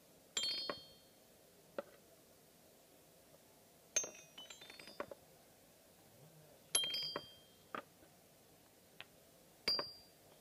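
Xylophone keys of a wooden pound-a-ball toy ringing: four bright strikes that die away, one of them followed by a quick run of notes as a ball rolls down the keys, with a few light knocks in between.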